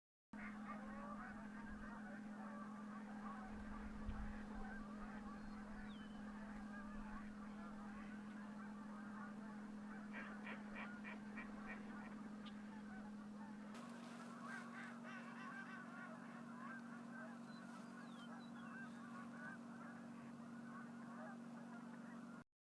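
A large flock of geese calling, a dense, unbroken chorus of overlapping honks, over a steady low hum.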